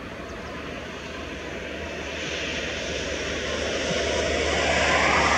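Jet airliner on final approach, its engine noise growing steadily louder as it comes nearer and peaking near the end.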